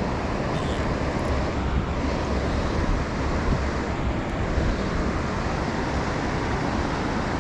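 River water running steadily: an even, continuous rush of current.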